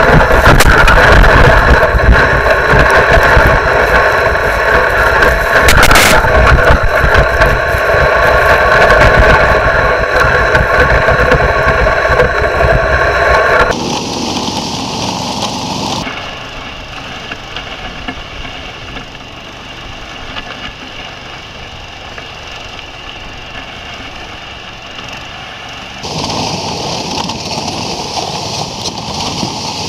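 SnowDog tracked snow machine's engine running steadily at travelling speed while towing a sled over snow. About halfway through the sound drops suddenly and turns quieter and duller, then grows brighter again near the end.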